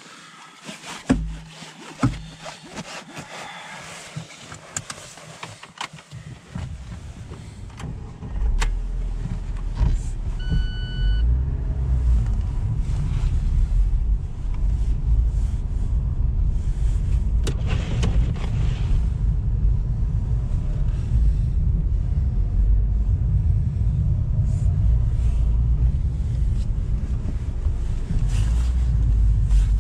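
Cabin of a Lada Niva Travel with its 1.7-litre four-cylinder engine: two sharp knocks, then from about six seconds in the low, steady rumble of the car driving through deep snow. A short electronic beep sounds about ten seconds in.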